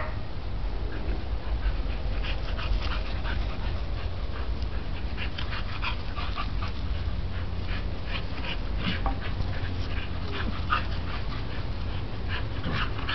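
Samoyed and Siberian Husky puppies playing, with scattered short yips and whimpers and quick scuffling, over a steady low rumble.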